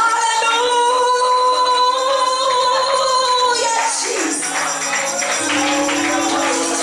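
Gospel worship music with a tambourine: a voice holds one long note for about three and a half seconds, then the tambourine shakes in a quick rhythm over low held instrument notes.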